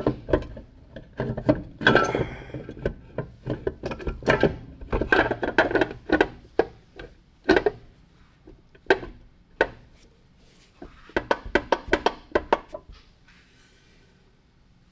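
Metal parts knocking and clanking irregularly as a transmission bell housing is worked onto the engine, with a quick run of taps about eleven seconds in.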